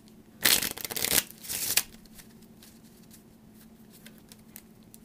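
A deck of playing cards being shuffled by hand: two loud bursts of rattling card noise in the first two seconds, then only faint clicks as the cards are handled.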